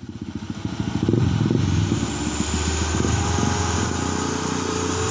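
Diesel truck engine running with a low, fast clatter, rising over the first second and then steady.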